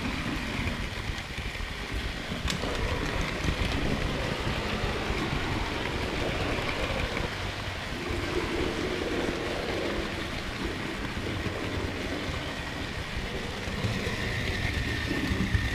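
Model railway train running along the track, heard up close from a camera riding on the train just behind the locomotive: a steady rumble of small wheels on the rails and the running gear. A single click comes about two and a half seconds in, and a faint high whine comes in near the end.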